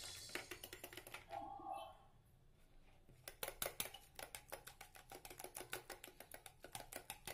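Wire whisk beating egg and sugar in a plastic bowl until the sugar dissolves: a rapid run of faint light clicks as the wires strike the bowl, with a short pause about two seconds in.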